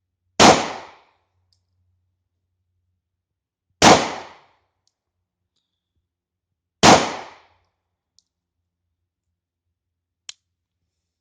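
Three 9mm pistol shots from a P.08 Luger, fired slowly about three seconds apart, each with a short fading echo. A faint click follows near the end.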